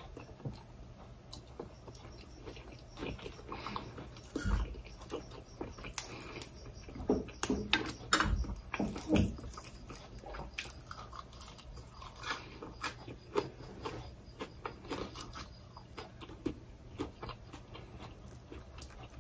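Mouth sounds of someone chewing sticky rice dipped in Thai eggplant dip and fresh herb leaves: soft chewing with irregular small wet clicks and smacks.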